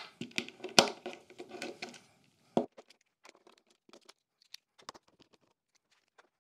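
Hand screwdriver working the screws that hold an MDF sub-fence to a table saw fence. A dense run of scraping clicks lasts about two seconds, with one sharper click about a second in, followed by scattered light ticks and knocks.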